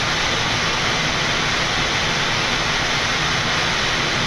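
Steady, even rush of airflow noise inside a Boeing 787 flight deck on final approach, with the landing gear and flaps down.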